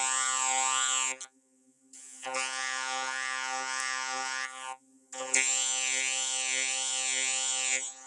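Cartoon bee buzzing sound effect: a steady buzz with a wavering, sweeping edge, heard as three separate buzzes broken by short silent gaps after about a second and a half-way through.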